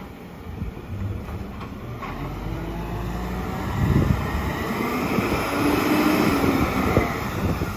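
Volvo side-loader garbage truck's diesel engine pulling up the street, growing louder from about halfway as it nears, with a whine that rises and then falls.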